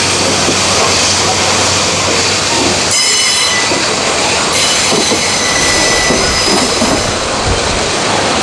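Freight train of covered hopper wagons rolling past on a curve, a steady heavy rumble of wheels on rail. High-pitched wheel squeal comes in about three seconds in and again from about four and a half to six seconds, the wheels grinding against the rails on the bend.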